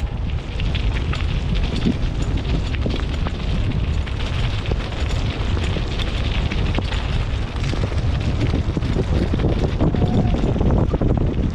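Heavy wind rumble buffeting the microphone of a mountain bike on the move, over a steady crackling hiss from the tyres on a wet trail and many small clicks and rattles from the bike.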